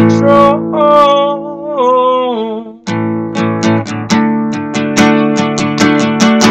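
Strummed acoustic guitar with a voice singing one long held note over it for the first three seconds or so. After that the guitar carries on alone in quick, even strums.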